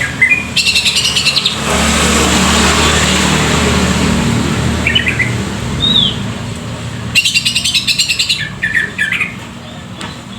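A songbird giving harsh, fast rattling calls twice, with a few short chirps in between. A louder steady rushing noise with a low hum, like a passing engine, runs from about two to seven seconds in.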